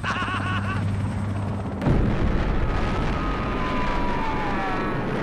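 Helicopter drone with a man's laugh in the first second. About two seconds in, a sudden loud boom carries on as a rumbling roar, with a whine falling in pitch over it.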